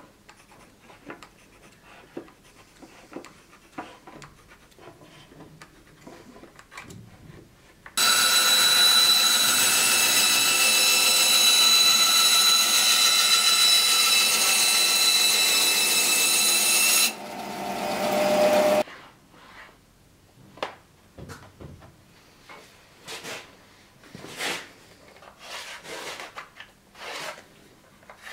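Bandsaw cutting a wooden board: about eight seconds in it starts with a loud, steady whine of motor and blade, runs for about nine seconds, then drops away and winds down. Before and after it, quiet short scratching strokes of a pencil marking the wood.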